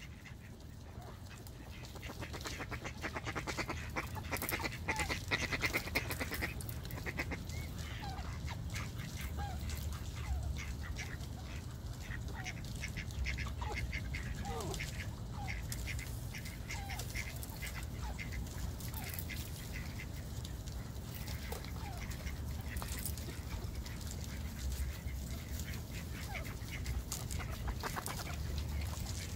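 A flock of mallards quacking and calling, many short calls dropping in pitch, mixed with frequent short clicks and taps. A low rumble runs underneath.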